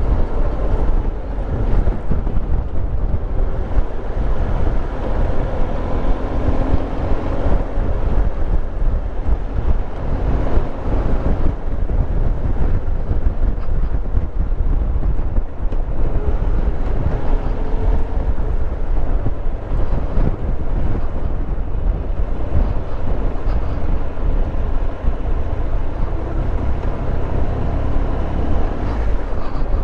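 Steady wind buffeting the microphone of a moving motorcycle, over the running engine of a Triumph Tiger Explorer 1200, an inline three-cylinder.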